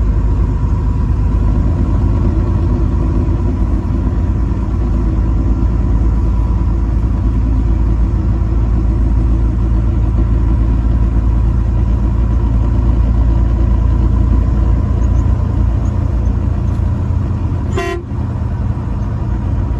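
Heavy truck on the road: a steady low engine and road rumble with faint steady tones above it, and a short click about two seconds before the end.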